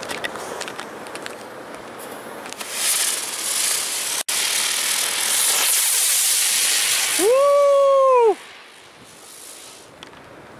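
Ladybug ground-spinner firework going off: crackling at first, then a loud hissing spray of sparks for about five seconds, ending in a whistle about a second long that cuts off suddenly.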